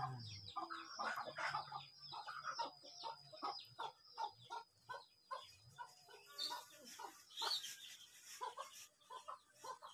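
Chickens clucking in a steady string of short, irregular clucks, with a thin, steady high-pitched tone under them that stops about six seconds in.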